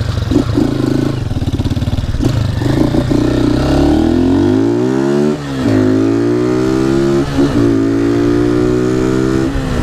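Honda Titan 150's tuned single-cylinder engine, carbureted and run without an air filter, blaring through a G-Moto aftermarket exhaust as the motorcycle accelerates. The pitch climbs, falls away at a gear change about five seconds in, then climbs again until it drops near the end.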